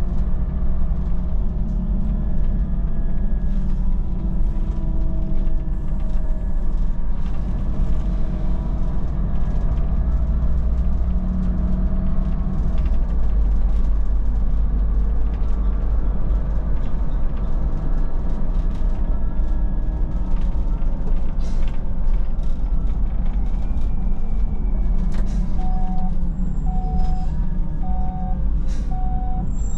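Solaris Urbino 12 city bus driving, its engine and drivetrain running with a steady rumble and slowly rising and falling whine. Near the end a regular beep starts, about one a second.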